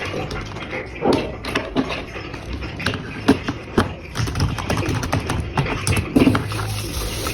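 Unboxing sounds from a keyboard-and-mouse combo's packaging: irregular knocks and clicks with rustling of cardboard and plastic as it is handled. A steady low hum comes in about six seconds in.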